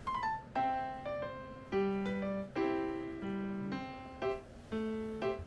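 Background music of struck keyboard notes and chords, each note ringing and then fading, in a slow, light melody.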